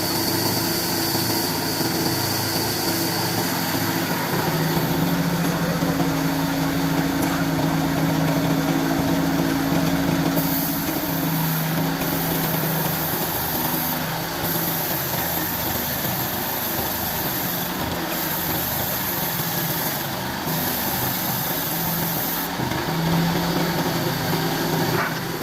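Motor of a wood-cutting machine running steadily, with a low hum that shifts in pitch now and then.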